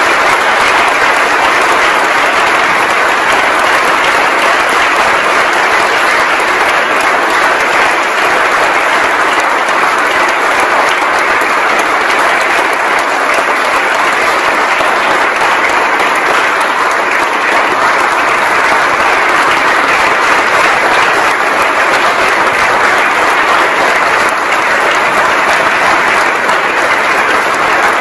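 A large audience applauding: dense, even clapping that keeps up without a break.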